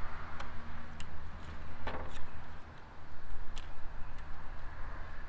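Scattered small clicks and rubbing as a skirt is worked around the body of a Pentair Great White pool cleaner and pressed onto its tabs, over a steady low hum.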